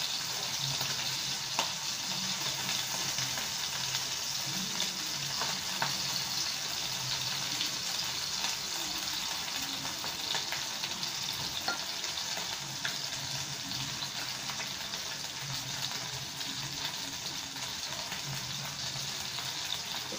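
Cornflour-coated chicken pieces sizzling steadily in shallow oil in a pan, with a few clicks of a steel spoon against the pan as the pieces are turned.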